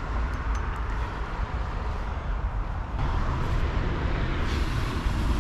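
Steady low rumbling outdoor background noise, with a few faint ticks in the first second.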